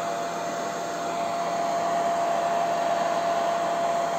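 Handheld hair dryer running steadily: an even rush of air with one steady whine over it, used to heat tinting film on a car tail-light lens so the film softens and sticks.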